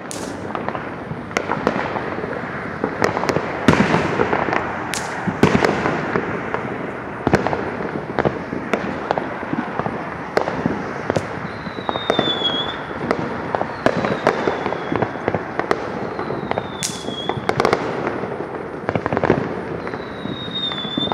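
Fireworks going off all around: a constant rattle of overlapping pops, bangs and crackles, with a few louder bangs scattered through. In the second half, a short falling whistle repeats every couple of seconds.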